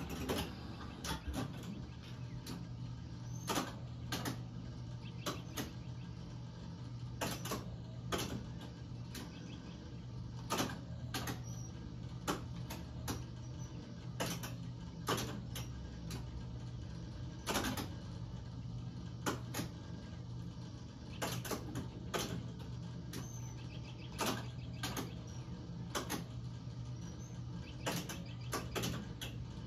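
1972 Midway Bullseye electromechanical dart game running: its relays, stepper units and score reels click and clack in irregular bursts over a steady electrical hum as points are counted during play.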